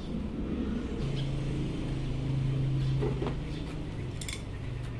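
A few light metallic clicks as a motorcycle's front brake lever is fitted onto the handlebar master cylinder, over a steady low hum that starts about a second in.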